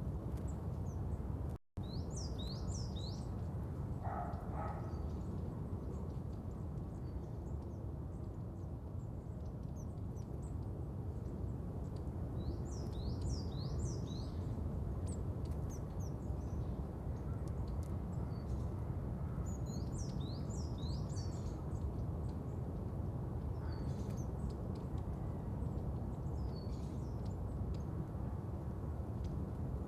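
Outdoor nature ambience: a steady low background hiss with small birds chirping in several short clusters of quick high notes, and one lower call about four seconds in. The sound cuts out for a split second just before the two-second mark, as at a loop restart.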